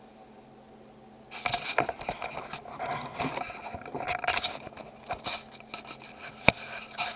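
Handling noise from a camera being moved and adjusted: irregular scraping and rustling with sharp clicks and knocks, starting about a second in after faint room tone, with one louder knock near the end.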